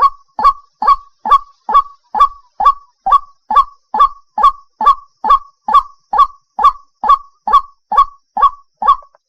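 White-breasted waterhen (ruak-ruak) calling in a fast, even series of short notes, a little over two a second, each sliding down in pitch. The series breaks off briefly near the end.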